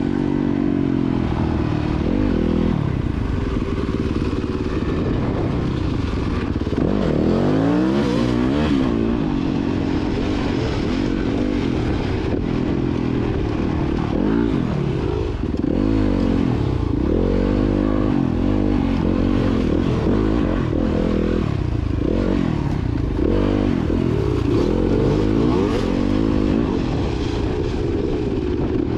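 Dirt bike engine running while riding, its pitch rising and falling again and again as the throttle opens and closes.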